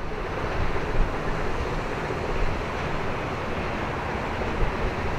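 Outdoor wind buffeting the microphone as a steady, uneven low rumble, with a faint steady hum underneath.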